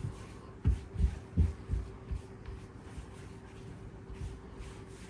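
Soft, dull thuds of hands pressing and patting bread dough flat on a countertop: four quick ones in the first two seconds, then a few fainter ones, over a faint steady hum.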